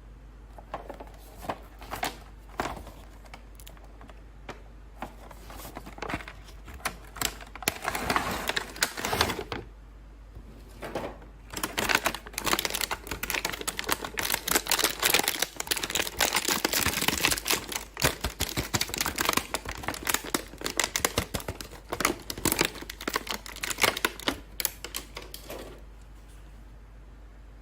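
Action-figure toy packaging being handled and opened by hand: scattered sharp clicks at first, then a long stretch of dense, rapid crackling and clicking that stops shortly before the end.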